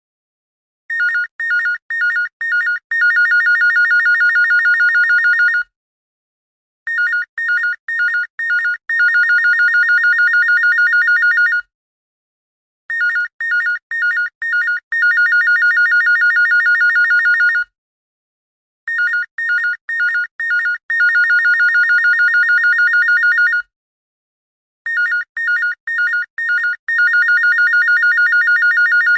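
Old-style telephone ringtone: a pattern of about five short rings, then a long trilling ring of nearly three seconds, repeating every six seconds or so with a short pause between cycles.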